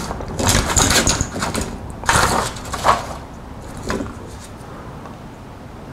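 Handling noises of hands and tools on a rubber bench mat: a few short rustles and clacks in the first three seconds as a self-adjusting wire stripper is picked up and fitted onto thin wires, one softer clack near four seconds, then quieter.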